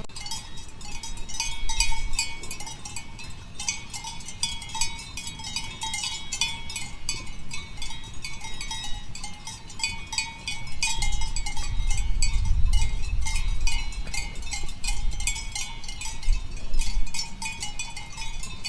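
Goat bells clanking irregularly and without a break, many metallic strikes ringing in quick succession. A low rumble sits under the bells a little past the middle.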